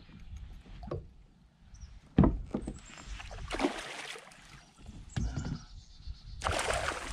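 A hooked bass thrashing and splashing at the surface beside a kayak, in bursts, the biggest near the end. A sharp knock on the kayak about two seconds in.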